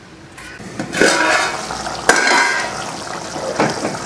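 A steel plate lid clinks against an aluminium pot as it is lifted off, about one and two seconds in, and then thick tamarind gravy (vatha kuzhambu) bubbles and spits steadily as it boils down, with a few light metal knocks near the end.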